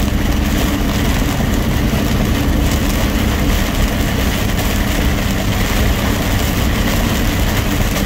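Semi-truck's diesel engine running steadily at road speed, heard inside the cab, under a constant hiss of heavy rain and tyre spray on the wet highway.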